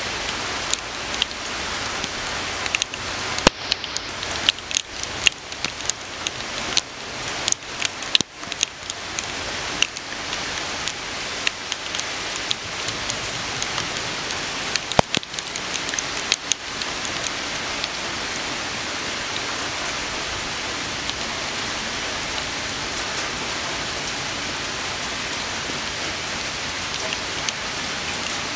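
Steady rain falling, with many sharp, irregular ticks of nearby drops through roughly the first half that then thin out, leaving an even rain hiss.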